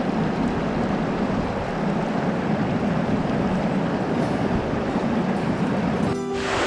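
Steady rushing water of a waterfall. About six seconds in the sound briefly dips and comes back brighter.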